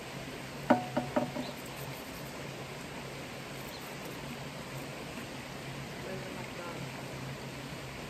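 Steady hiss of a sprayer soaking the inside of a chicken coop with mite treatment. About a second in there is a quick run of four short, sharp sounds.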